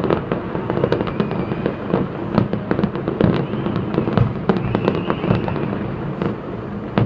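Fireworks show: a rapid, continuous string of bangs and crackles over a steady rumble of booms.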